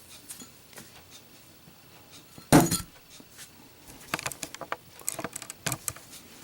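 A lit brass Zippo lighter dropped onto a hard surface: one loud impact about two and a half seconds in, followed by a run of light metallic clicks and clinks as it is handled.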